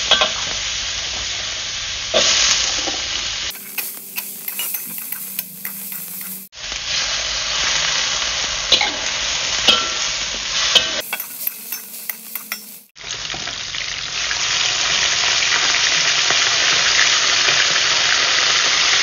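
Food sizzling in hot oil in a wok as garlic, tomato and long beans are stir-fried, with a spatula clicking and scraping against the pan. The sound changes abruptly several times, and over the last six seconds it is a louder, steady sizzle of a whole tilapia deep-frying in oil.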